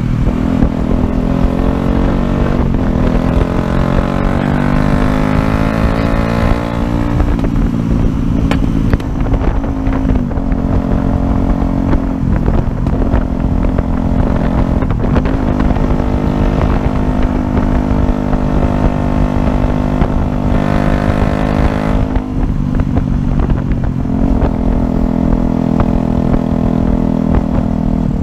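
Yamaha YZF-R125's 125 cc single-cylinder four-stroke engine pulling the bike along. Its pitch climbs and then drops sharply at a gear change about seven seconds in, runs fairly steadily, and shifts again about three quarters of the way through, over a constant low rumble.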